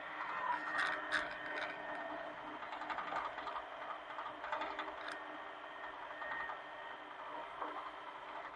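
Hitachi mini excavator working: its engine running steadily with mechanical clatter and a few sharp clanks, the loudest about a second in.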